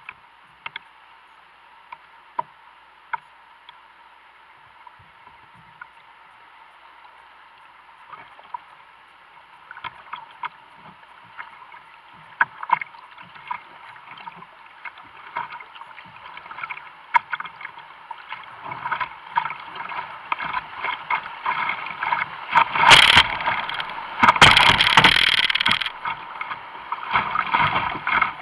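Kayak heading into a rapid on a flooded creek. Scattered sharp splashes and knocks from paddle strokes give way to a rush of whitewater that builds steadily. A little past two-thirds of the way in come loud bursts of waves and spray breaking over the boat.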